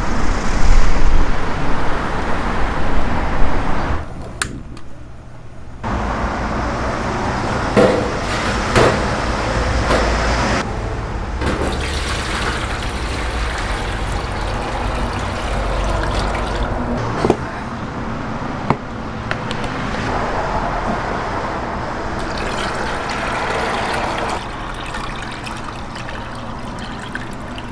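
Water poured from a stainless steel bowl into a divided steel tteokbokki pan, splashing as it fills, and later brown broth streaming into the pan, with a few metal clinks along the way. The first four seconds are louder, with street noise.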